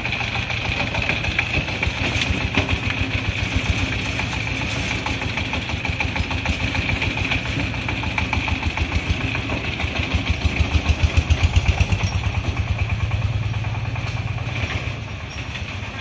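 Single-cylinder diesel engine of a homemade three-wheeled cargo vehicle chugging with a fast, even beat. The beat grows louder about ten seconds in and eases off again near the end.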